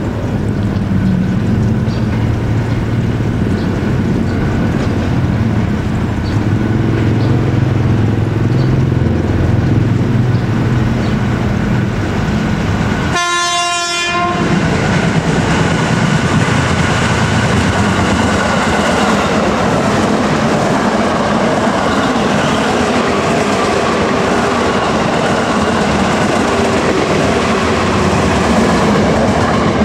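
Electric commuter train (multiple unit) running along the line, with a low rumble. About halfway through there is a short break, after which an electric commuter train draws close and passes with a steady, loud rush and clatter of wheels on rails.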